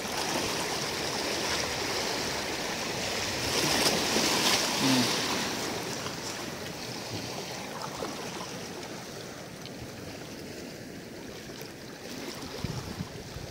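Choppy water lapping and sloshing, loudest about four seconds in and then settling to a softer wash, with a few light clicks near the end.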